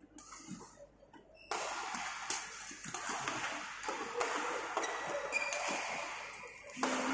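Badminton singles rally: sharp racket strikes on the shuttlecock and a brief shoe squeak on the court floor. A steady background din of the hall starts abruptly about a second and a half in.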